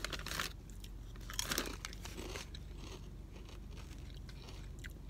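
Crunching and chewing on kettle-cooked potato chips close to the microphone: a few crisp crunches in the first couple of seconds, then quieter chewing.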